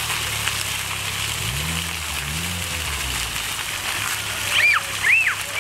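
Splash-pad fountain jets spraying and splashing steadily. Near the end a young child gives a few high squeals.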